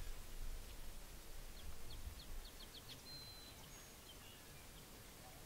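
A small songbird singing a quick trill of about six short high notes, then one held high note, over a low outdoor rumble that fades about three seconds in.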